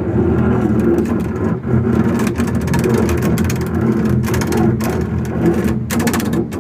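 Solo double bass played with extended technique: a noisy low drone holding several steady pitches, with a rapid rattle of clicks over it.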